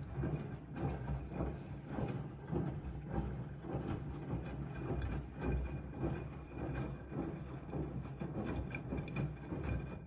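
Siemens iQ300 front-loading washing machine washing, its drum turning with a steady low motor hum while the wet laundry tumbles and sloshes in sudsy water in repeated swishes.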